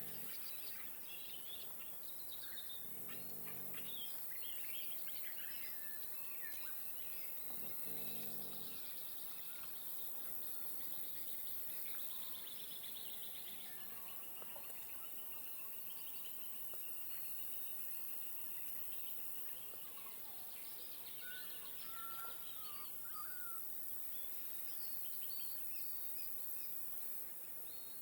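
Lakeside ambience: many birds chirping and warbling all through, over a steady high hiss of insects. Two short, lower calls stand out about three and eight seconds in.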